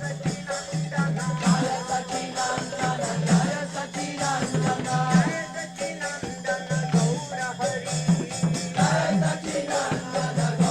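Devotional kirtan: a group of voices chanting to mridanga drums and kartal hand cymbals, the cymbals clashing rapidly over a steady drum rhythm.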